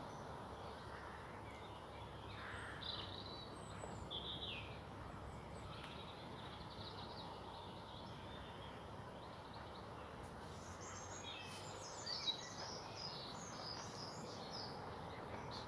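Faint outdoor background hiss with small birds chirping: a few calls about three seconds in, then a busier run of chirps over the last five seconds. A single sharp tick stands out about twelve seconds in.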